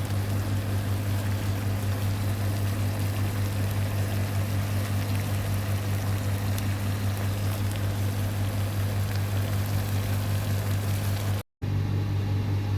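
A steady low hum under a rushing hiss, broken off for a moment about a second before the end.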